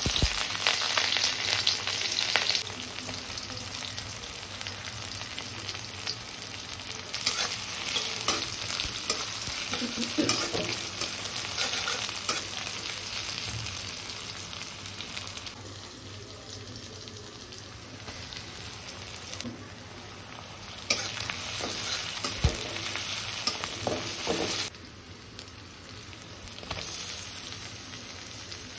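Food frying and sizzling in hot oil in a kadhai, with a spoon stirring and knocking against the pan. The sizzle's loudness jumps up and down abruptly several times.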